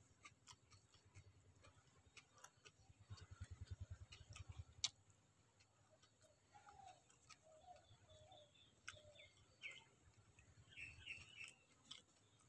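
Near silence with the faint sounds of eating by hand from a steel plate: soft chewing and small clicks of fingers on the plate, one sharper click about five seconds in. Faint bird chirps come in the second half.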